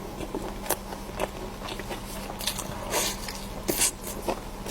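A person eating close to the microphone: biting and chewing, with short crisp crunches and mouth clicks coming irregularly, about every half second to a second.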